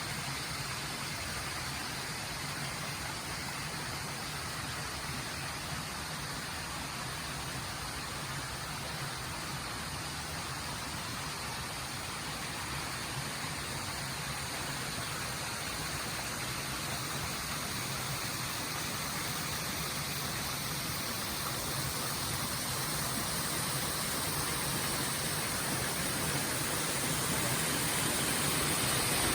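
Mountain stream flowing over rocks: a steady, even rushing of water that grows a little louder near the end.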